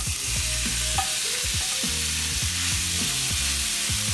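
Cubed raw beef sizzling steadily as it lands in hot olive oil in a cast iron skillet, with a spatula scraping it off a plate and stirring it around the pan.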